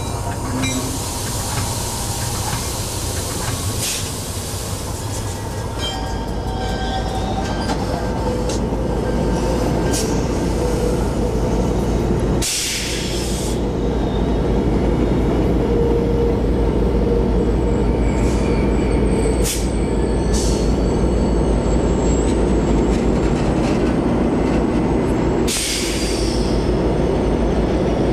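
Steady engine and wheel noise inside the cab of a GO Transit EMD F59PH diesel locomotive running into a station. About twelve seconds in, the sound cuts to trackside: a GO Transit push-pull train of bilevel coaches rolls past, louder, with a continuous wheel-and-rail rumble and a low engine drone. A faint high wheel squeal comes a few seconds later, and the F59PH locomotive passes near the end.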